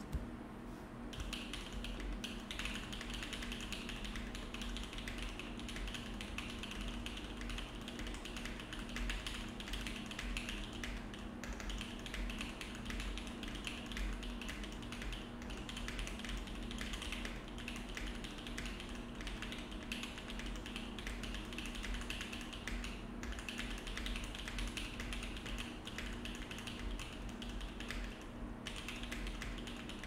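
Continuous fast typing on a Think6.5 V3 custom mechanical keyboard with an aluminium plate, no foam and the tape mod, starting about a second in. Key presses clatter in a dense, steady stream.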